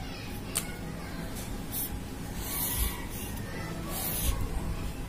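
A pen scratching across paper in a few short strokes, drawing a box around a written answer.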